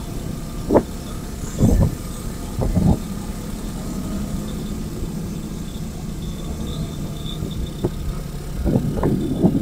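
Motor vehicle engine running steadily with a low hum, with a few sharp knocks scattered through and a cluster of them near the end.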